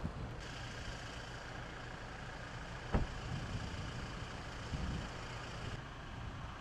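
Outdoor background noise: a steady low rumble and hiss, with one sharp knock about three seconds in and a softer thump near five seconds.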